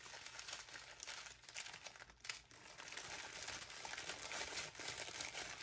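Packaging crinkling and rustling as it is handled, in a run of small irregular rustles with one sharper click about two seconds in.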